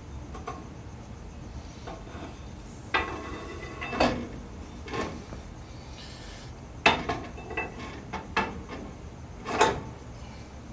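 Steel axle shaft being pushed into the rear axle housing of a GM 10-bolt 7.5-inch differential, with about seven irregular metal clunks and clinks as it is worked home.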